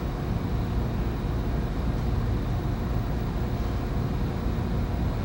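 Steady low engine rumble of heavy demolition machinery running without a break, with no distinct crashes or impacts.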